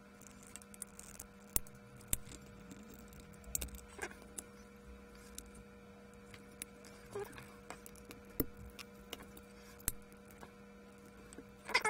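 Sparse faint clicks and small knocks of a moulded plastic pulse-oximeter finger probe being handled and prised apart, over a faint steady hum. A louder crackling clatter begins right at the end.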